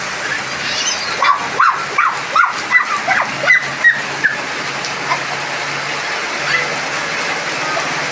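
Steady rain falling, with a quick run of about nine short bird calls between one and four seconds in, and a couple more later.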